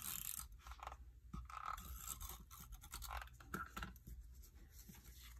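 Dry-adhesive tape runner drawn along a cardstock strip in several short scratchy strokes, laying down adhesive, with paper handling in between.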